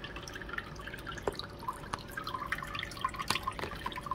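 Water trickling and splashing from an RC boat's cooling-line outlet tube into a plastic bowl, an irregular patter of small drips and splashes. This is cooling water being run through the boat's motor and speed-control cooling lines to test their flow.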